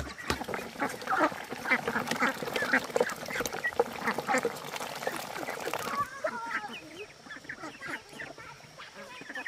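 A flock of domestic ducks quacking as they crowd a feed trough, with a dense patter of short clicks from their bills working the feed. The sound thins to scattered quacks about six seconds in.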